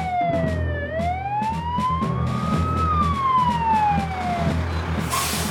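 Dennis fire engine's siren on a slow wail: it falls, climbs back up and falls again before dying away, over the low running of the engine. A short burst of hiss comes near the end.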